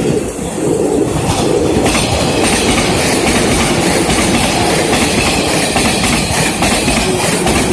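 Electric multiple-unit passenger train passing close by at a level crossing, loud, its wheels clacking rapidly over the rail joints from about two seconds in.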